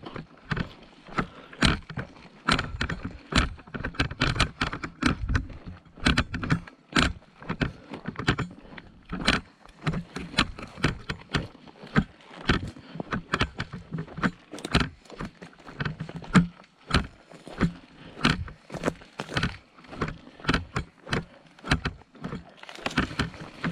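Footsteps with gear jostling and rattling: a steady run of irregular clicks and rustles, several a second, from a person on the move carrying equipment.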